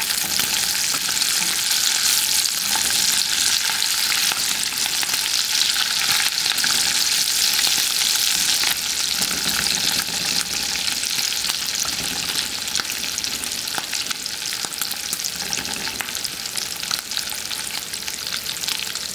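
Meat frying in hot fat in a skillet: a steady sizzle, thick with fine crackles and pops, easing off slightly towards the end.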